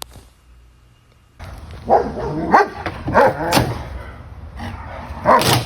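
A dog barking about five times in short separate barks, the loudest near the end, after a quiet opening second and a half.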